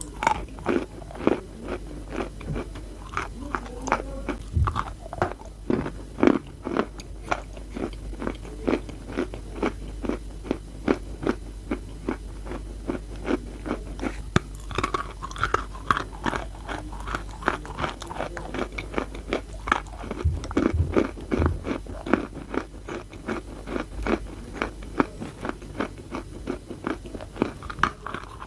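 Close-up chewing and biting of wet chalk: a fast, continuous run of gritty, sandy crunches, several a second.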